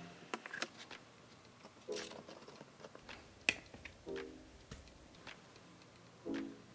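Quiet background music: short pitched notes recurring about every two seconds, with sparse light clicks and ticks between them.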